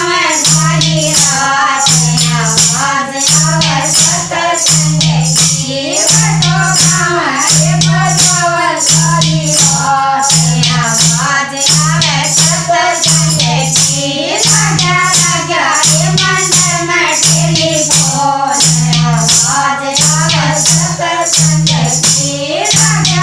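Haryanvi folk bhajan: a singing voice carrying the melody over a regular beat, with bright shaken percussion like a rattle or tambourine and a pulsing low tone.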